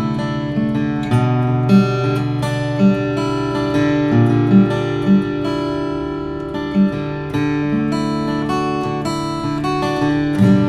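Custom-built koa-wood acoustic guitar played solo: a melody over held bass notes, with several sharper, louder accented notes along the way.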